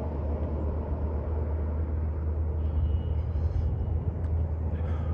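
Wind buffeting the microphone outdoors, a steady low rumble with hiss.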